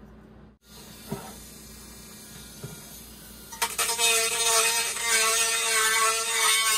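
Small handheld rotary tool with a grinding bit starting up about three and a half seconds in and running with a steady high whine against the speaker's steel frame, roughing the metal so the adhesive will grip. A couple of light clicks of handling come before it.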